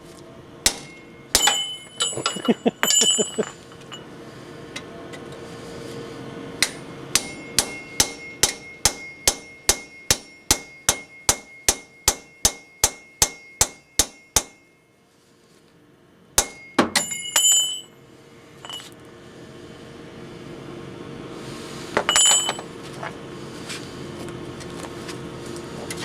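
Hammer striking metal: a few quick blows, then a long even run of about twenty blows at roughly three a second, then a few more blows. Each blow rings with a metallic tone.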